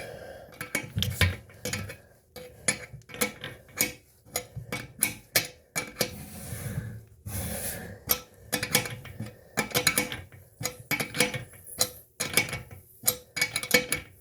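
A metal wrench clicking and clinking on the toilet tank bolt nuts as they are tightened a little at a time, with several short irregular clicks a second.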